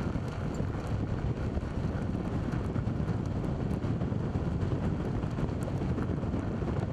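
Car driving along a dry dirt road: steady rush of wind on the microphone over low tyre and road rumble, with a few faint ticks.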